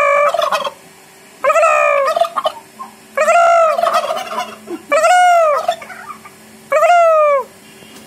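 Domestic turkey toms gobbling while strutting in display, with five loud gobbles about one and a half seconds apart.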